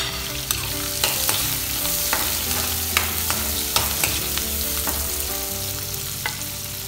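Onion sizzling in hot cooking oil in a pan, with sharp clicks as a utensil knocks against the pan while it is stirred.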